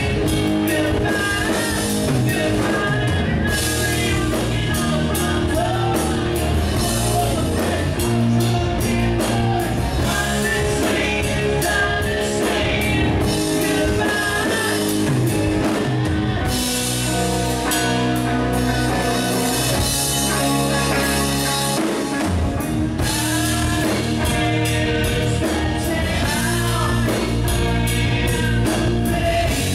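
Live rock band playing amplified through a PA: electric guitars, bass and drum kit with a male lead vocal. A stretch of heavy cymbal wash comes in about midway.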